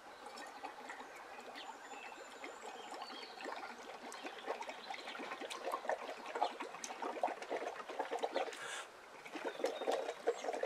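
Bubbling from air being blown through a drinking straw into a glass of liquid, a dense crackle of bubbles that gets louder as the foam builds and overflows. There is a short break for breath about nine seconds in, then the bubbling resumes.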